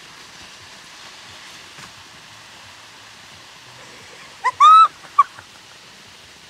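Steady hiss of water spraying from a farm sprinkler or mister. About four and a half seconds in there is a short, loud, high-pitched squeal in three quick notes.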